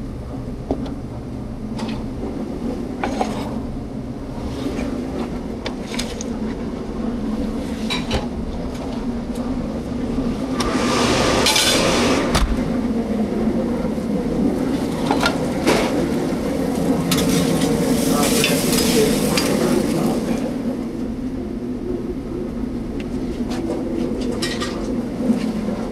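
Restaurant kitchen line: food sizzling on hot pans and the grill, with scattered clinks and clatter of utensils and pans over a steady low hum. The sizzling swells louder twice, about ten seconds in and again a few seconds later.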